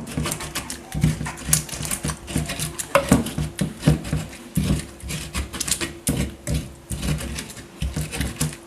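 Scotch bonnet pepper, onion, ginger and garlic being ground together by hand: a steady run of knocks and wet crushing strokes, about two a second.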